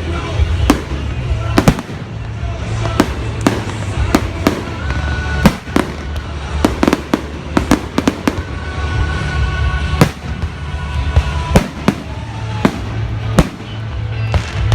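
Fireworks display: a rapid, irregular run of sharp bangs and crackles from aerial shells bursting, several a second, over a steady low rumble.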